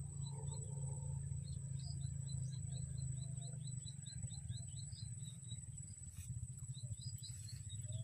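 Young plain prinia (prenjak sawah) chattering its 'ngeriwik' call: a rapid run of short, high, down-slurred notes, about four a second, that stops a little past halfway.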